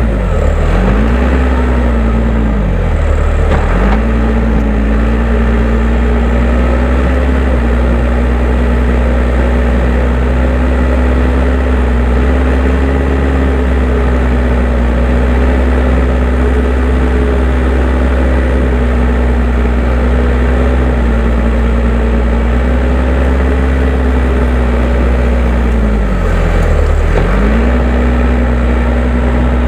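Case 580M backhoe loader's diesel engine running steadily at working speed while its loader scrapes hard ground. The engine speed sags briefly and recovers twice near the start and once near the end, as it takes load.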